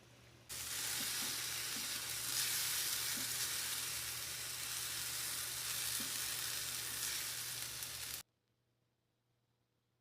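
Food sizzling in a frying pan: a steady, loud hiss that starts suddenly about half a second in and cuts off abruptly after about eight seconds.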